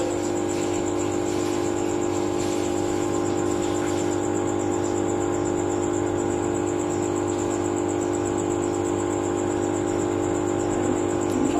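Aquarium pump humming steadily, an even electric drone that does not change.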